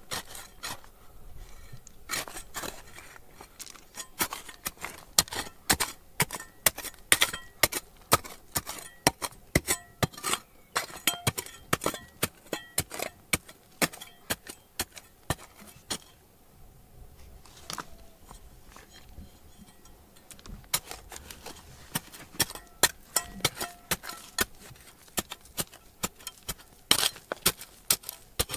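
Irregular sharp clinks, taps and scrapes of hard objects knocking together, with a quieter spell a little past halfway.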